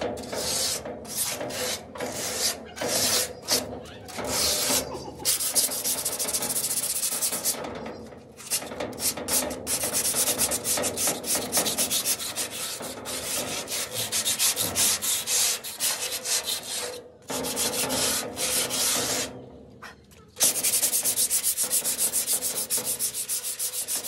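Sandpaper rubbed by hand over a rusty metal signboard, stripping rust and old paint before priming. It makes quick back-and-forth scraping strokes, spaced apart at first, then a fast even run of strokes after a brief pause near the end.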